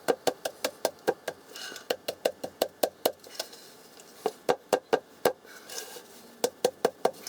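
Quick light knocks, about six a second, in three bursts with short pauses between them, like a wooden part being tapped along.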